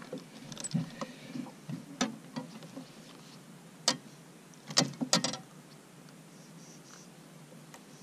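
Handling noises while a small largemouth bass is unhooked on a boat deck: soft bumps, then sharp knocks and a jangling rattle of lure and hooks, loudest in a cluster about five seconds in.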